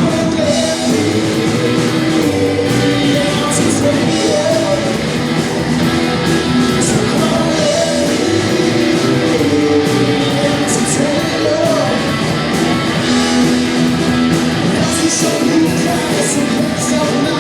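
Live band playing a song, with singing over guitar accompaniment.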